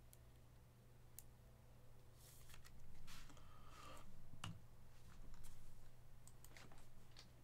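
Faint clicks and rustling from a trading card in a clear hard plastic holder being handled and set upright on a stand.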